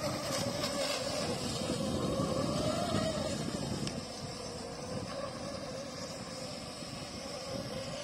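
Radio-controlled model boat's motor whining, a steady high tone that wavers a little in pitch, louder in the first half.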